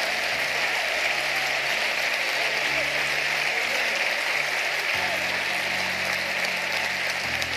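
Congregation applauding steadily after a line of the sermon, with soft held low music notes underneath.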